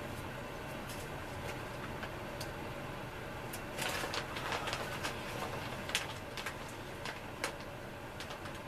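Close handling noise over a steady low hum: a brief rustle about halfway through, then several sharp clicks and light knocks.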